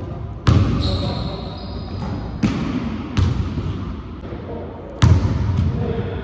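Basketball bouncing on a hardwood gym floor: four loud, irregularly spaced thuds that echo through the hall.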